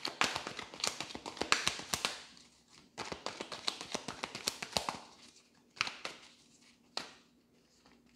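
A tarot deck being shuffled by hand: two quick flurries of crisp card clicks, each about two seconds long, then two single clicks a second apart.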